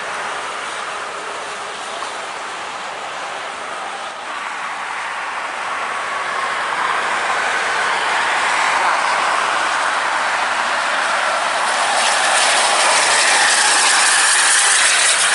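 Highway traffic noise from coach buses passing on a toll road: a steady rush of tyres and engines that grows louder over the second half as a bus goes by close.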